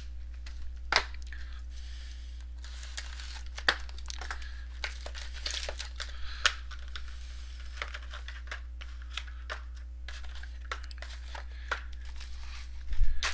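Plastic packaging crinkling and tearing as trading card boxes and packs are handled, with many scattered sharp clicks and taps. A louder low bump comes near the end.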